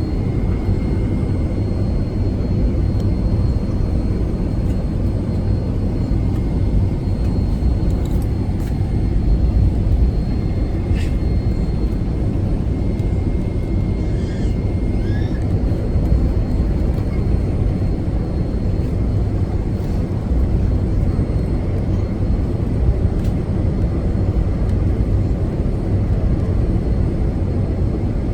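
Boeing 757-200 airliner heard from inside the passenger cabin: a steady, loud, low rumble of engines and airflow, with a faint high steady tone over it.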